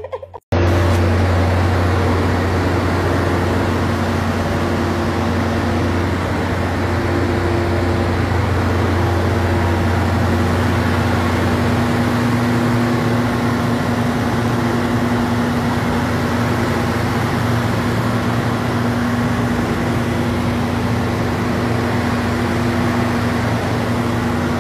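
Diesel locomotive engine running with a loud, steady low hum. Its low note shifts slightly about halfway through.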